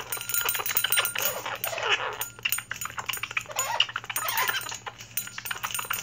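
A small metal cage-toy bell jangling rapidly as a blue-crowned conure bites and works it with its beak, with several short conure calls in between.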